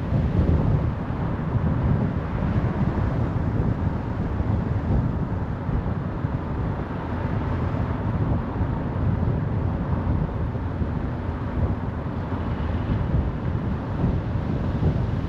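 Car driving at motorway speed: steady tyre and wind noise with a low, even rumble.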